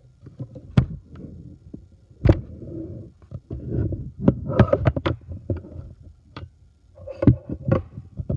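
Handling noise on the recording device's microphone: irregular thumps, sharp knocks and rubbing as the handheld device is moved and jostled.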